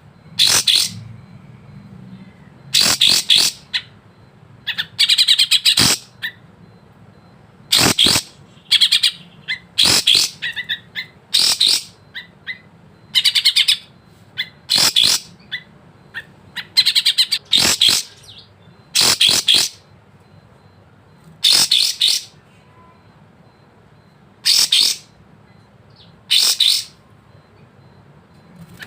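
Sooty-headed bulbul singing: short, bright, high phrases repeated about every second or two, with brief pauses between them.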